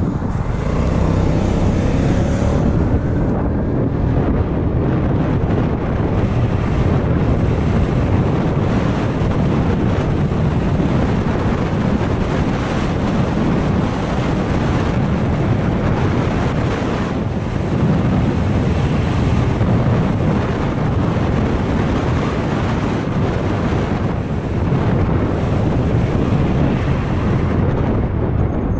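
Wind rushing and buffeting over an action camera's microphone while riding a scooter at road speed, steady throughout, with the scooter's running and tyre noise underneath.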